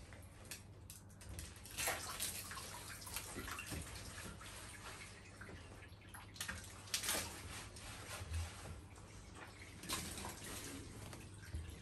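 Diluted shampoo-and-water mix poured from a plastic jug over a wet malamute's coat in a bathtub, splashing and dripping into the tub water, with louder splashes about 2, 7 and 10 seconds in.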